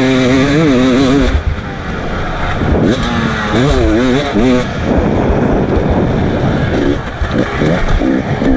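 KTM 300 EXC TPI two-stroke enduro motorcycle engine at full race effort, its pitch rising and falling repeatedly as the throttle is worked. In the second half the note turns rougher and more broken.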